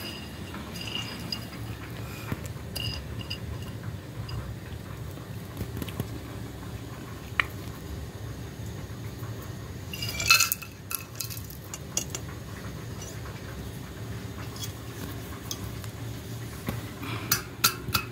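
Walnut kernels and bits of shell being picked over on a ceramic plate, with small light clinks on the plate. About ten seconds in, a louder clatter as the kernels are swept off the plate into a metal pot. Near the end, a wooden pestle starts pounding the walnuts in the metal pot in regular strokes, about three a second.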